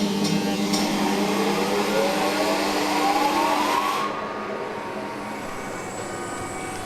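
Metal lathe switched on and spinning up: its motor whine rises steadily in pitch for about four seconds, then levels off into a steady run, with a hiss dropping away at the same moment.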